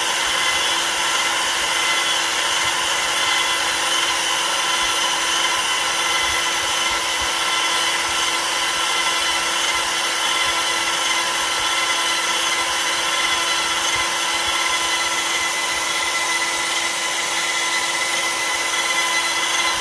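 CNC router spindle running steadily while its end mill cuts a rotating softwood blank into a turned leg on the rotary axis: a constant whine of several tones over the noise of wood being cut away.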